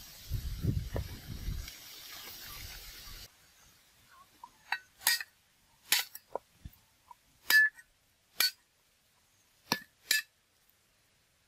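Meat cleaver chopping on a round wooden chopping block. First come quick chops over background noise. Then, after an abrupt drop in that noise, there are about ten separate sharp knocks, each with a short metallic ring, spaced irregularly about a second apart, as garlic is cut.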